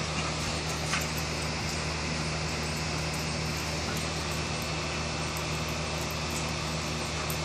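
Steady low mechanical hum, like a machine running, with a faint tick about a second in.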